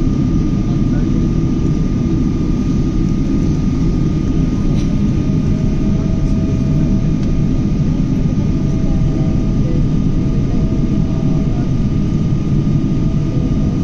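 Boeing 777 jet engines running, a steady loud rumble with a thin steady whine above it.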